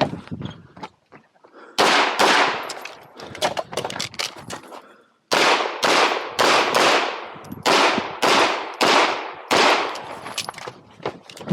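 A 9mm competition pistol (KMR Spectra) firing rapid shots during an IPSC stage: a couple of shots about 2 seconds in, a few quieter reports over the next three seconds, then a fast run of shots, roughly two a second, from about 5 seconds in. Each shot has a short echo.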